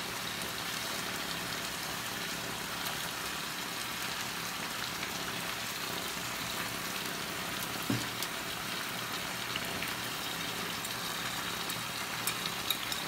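Steady sizzling from a roasting pan of meat and layered potatoes and vegetables heating on a gas stove, with a brief knock about eight seconds in and a few light clicks of the slices being handled near the end.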